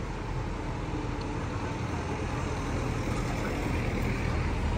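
City street ambience: a steady low rumble of road traffic, growing a little louder toward the end.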